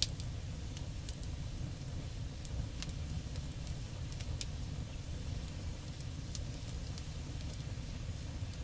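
Gas griddle burners running with a steady low rush under the steel cooktop, with scattered faint crackling ticks as the seasoning oil cooks off the hot plate.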